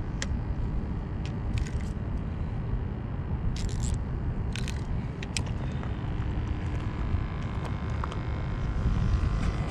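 Steady low rumble of wind buffeting the microphone, with a few short clicks and a brief scrape as a spinning reel is handled.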